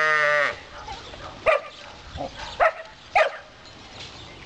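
Young border collie barking three times, short sharp yelps about a second apart, while working goats. A long drawn-out call comes at the very start.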